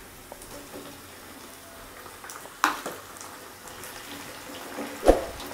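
Shallots, garlic and curry leaves frying gently in oil in a nonstick pan, a soft steady sizzle. A knock about two and a half seconds in and another near the end as cut tomatoes are tipped in and stirred with a wooden spatula.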